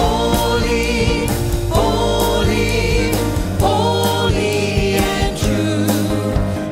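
Church choir and vocalists singing a hymn over piano, bass guitar and drums, with a steady beat.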